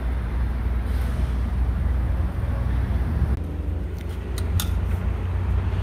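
Gasoline pump filling a car's fuel tank through the nozzle: a steady low hum and rush of fuel flowing. A couple of sharp clicks come about four and a half seconds in.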